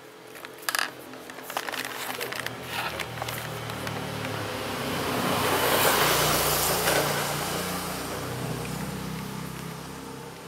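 A motor vehicle passing by: its engine hum and road noise swell to a peak about six seconds in, then fade away. A few sharp clicks sound in the first few seconds.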